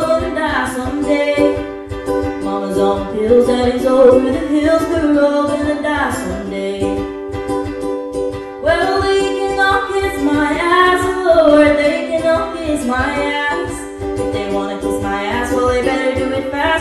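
A young woman singing a song live into a microphone while strumming a ukulele in a steady rhythm, her sung phrases breaking briefly for breaths every few seconds.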